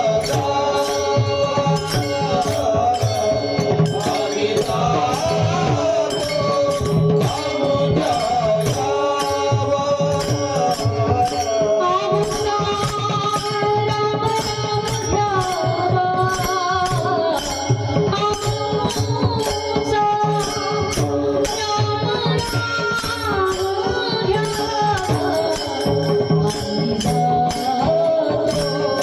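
A woman singing a devotional Marathi kirtan melody, accompanied by a steady beat of jingling rattle-like percussion and hand drum.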